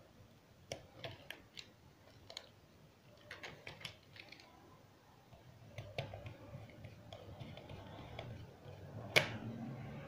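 Small irregular clicks and taps of a precision screwdriver working the screws and plastic shell of a PS4 DualShock 4 controller as it is screwed back together, with one sharper click about nine seconds in.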